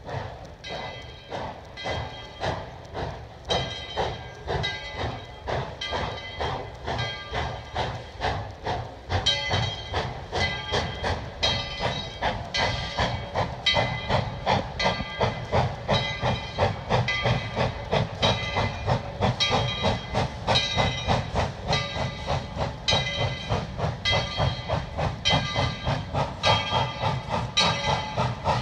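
Steam locomotive bell on Tweetsie Railroad No. 12 ringing steadily, about two strokes a second, over steam hiss and the train's low running noise. It grows louder about a third of the way in as the train approaches.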